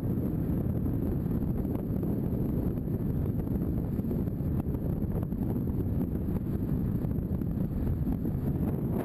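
Wind buffeting the microphone of a camera on a moving maxi-scooter, a steady low rumble at road speed.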